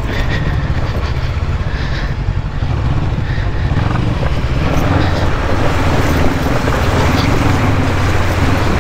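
Bristol Venturi 500 adventure motorcycle's engine running steadily at low speed over rough, rocky ground. Near the end it splashes through a shallow river crossing.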